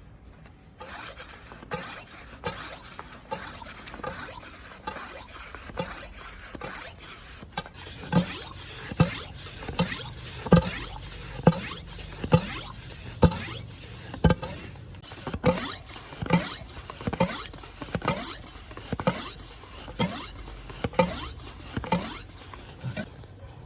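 Hand air pump worked in steady strokes, each a short hiss of air with a squeak that falls in pitch, about one and a half strokes a second. The strokes grow louder about a third of the way in.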